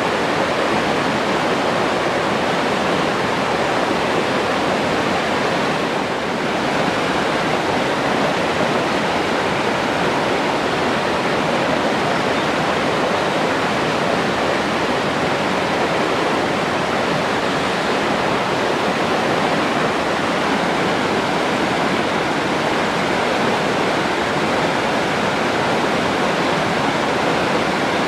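Water of a forest river or stream rushing over rocks in a steady, full hiss.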